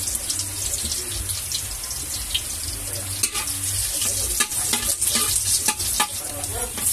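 Food sizzling in a hot pan, with sharp clinks of a utensil stirring from about three seconds in.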